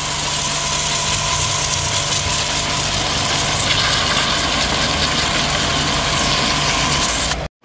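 Pressure washer running steadily: a steady hum under an even hiss. It cuts off suddenly near the end.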